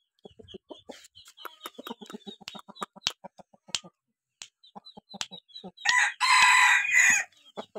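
Game rooster (fighting cock) making a run of short low clucks mixed with soft clicks, then crowing once about six seconds in, a single crow lasting about a second and a half.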